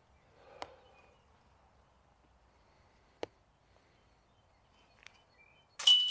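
A few faint clicks, then near the end a putted disc hits the chains of a disc golf basket with a sudden loud metallic clash and ring that fades out: the putt going in.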